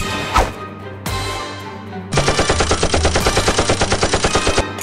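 Automatic-gunfire sound effect dubbed over a toy-blaster shootout. A rapid, even burst of machine-gun fire starts about two seconds in, runs for a couple of seconds and stops abruptly, with background music underneath.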